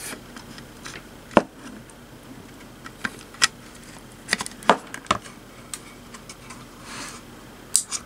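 Scattered plastic and metal clicks and knocks as a 3.5-inch SATA hard drive is pushed into a USB hard-drive adapter's connector and handled on the desk, the loudest about a second and a half in and twice around five seconds in, with a brief rubbing sound near the end.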